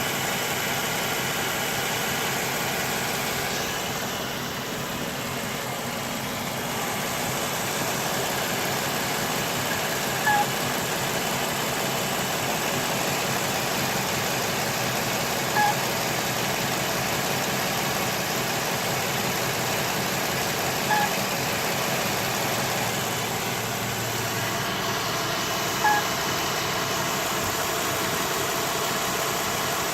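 2013 Jeep Wrangler's 3.6-litre V6 idling steadily, with the noise of a failing water pump, whose squeal the owner is showing. A short high chirp sounds about every five seconds, four times.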